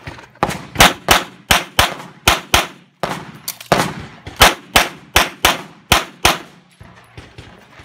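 Semi-automatic pistol fired rapidly: about eighteen shots in quick pairs and strings, with a short break about three seconds in and a few fainter shots near the end.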